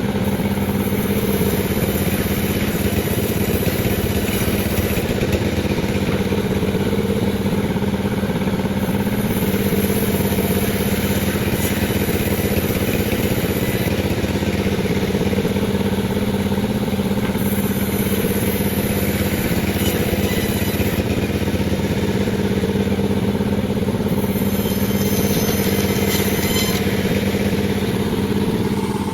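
Panda36 two-stroke chainsaw running at a steady high pitch while it saws lengthwise through a durian log.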